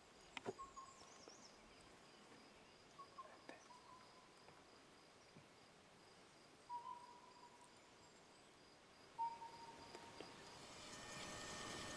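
Quiet woodland ambience: a faint steady high insect drone, a few soft clicks, and several brief whistle-like notes. The background hiss rises near the end.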